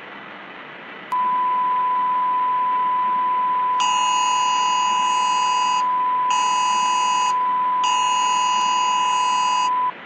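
Electronic alert tones of a mock emergency broadcast: a steady single tone starts about a second in and holds for nearly nine seconds, and from about four seconds in a chord of higher tones sounds over it three times, the middle one shortest, all under a faint steady hiss.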